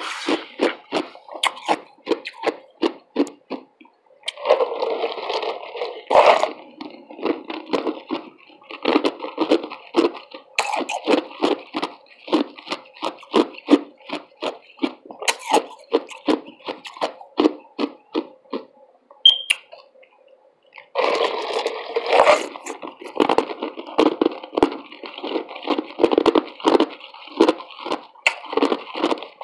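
Close-miked chewing and crunching of ice, crisp bites about three a second, with two longer, denser spells of crunching along the way.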